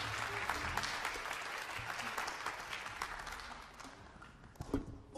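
Audience applause dying away, thinning to scattered claps over about four seconds.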